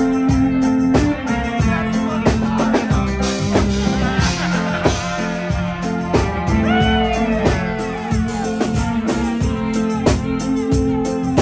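Live reggae band playing an instrumental passage over the PA: bass guitar, drum kit and guitar keeping a steady beat. A short sliding high tone comes about seven seconds in.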